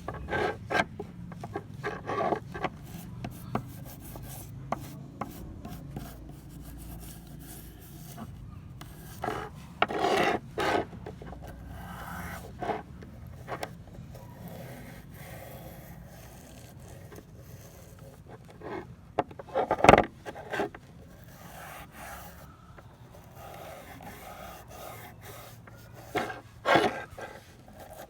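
Irregular rubbing and scraping strokes of hand finishing work on old pliers, coming in short clusters, with one sharp knock about twenty seconds in.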